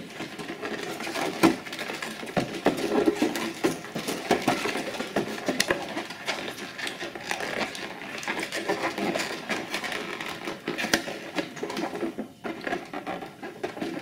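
Inflated latex balloons rubbing and squeaking under the hands, with many small irregular clicks and creaks, as a short piece of twisting balloon is tied onto a round balloon.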